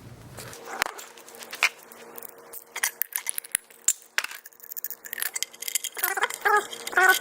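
Metal clinking, tapping and rattling as a horn mounting bracket and its hardware are handled and fitted to a new horn, with a few short squeaks near the end.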